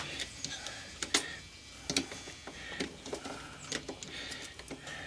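Scattered light clicks and taps of metal tools and parts being handled while working on a screw in a washing machine's housing, several over a few seconds.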